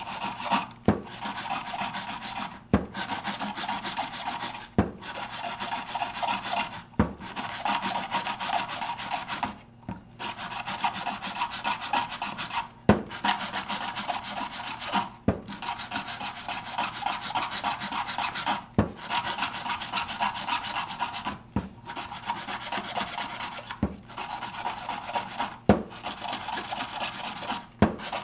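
Round file rasping back and forth inside the worn hub of a plastic lawn mower wheel, reaming the bore out to take a metal spacer. The filing runs on steadily, broken every two seconds or so by a short pause and a sharp click.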